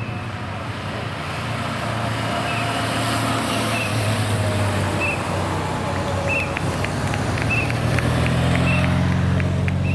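Race escort motorcycle engines running close by, growing louder toward the end. A short high chirp repeats about once a second over it.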